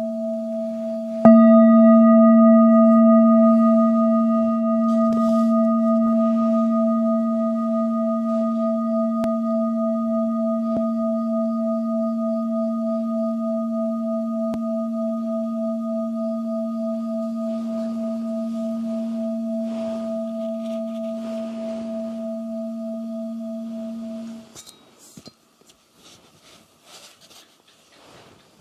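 Singing bowl struck about a second in. Its low hum and higher overtones ring on with a slow wavering pulse, fading gently for over twenty seconds, then stop short. Faint small handling noises follow.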